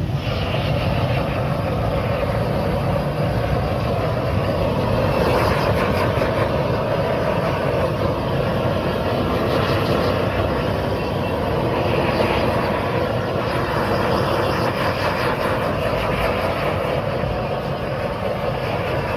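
Handheld gas torch burning with a steady, unbroken rushing noise as its flame is played over cheese-topped pizzas in clay cups.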